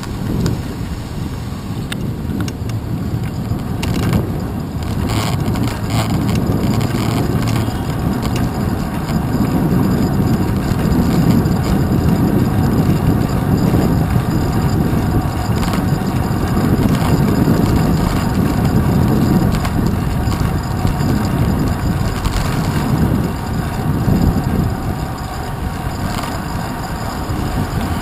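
Steady low rumble of a bicycle ride in city traffic, picked up by a handlebar-mounted camera's microphone: road and wind noise mixed with the engines of cars and vans alongside. It swells louder through the middle.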